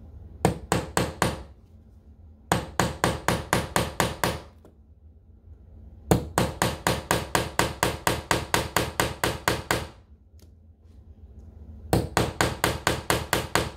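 A claw hammer taps a steel nail into a wooden door frame in four runs of quick, light strikes at about five a second, with short pauses between the runs.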